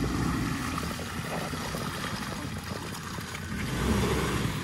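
Ford Ranger's 3.2-litre five-cylinder diesel running at low revs as the pickup crawls through wet mud, its off-road tyres squelching and splashing in the ruts. It grows louder about four seconds in as the truck comes close.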